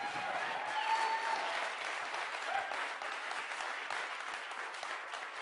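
An audience applauding, easing off slightly toward the end.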